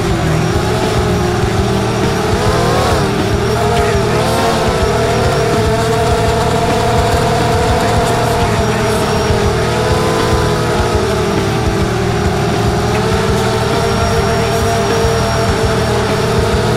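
FPV racing quadcopter's brushless motors and propellers whining, the pitch rising and falling with the throttle as it flies fast and low, over a steady rush of wind noise.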